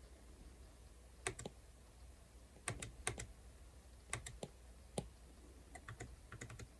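Faint, sharp clicks of a stylus tip tapping on a tablet's glass screen, coming in quick little clusters of two to five taps.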